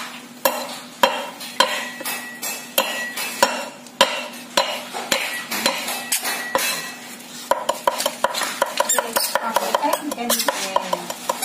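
Cleaver chopping chili and seeds on a thick wooden chopping board: steady knocks about two a second, quickening to rapid mincing strokes, about four a second, for the last few seconds.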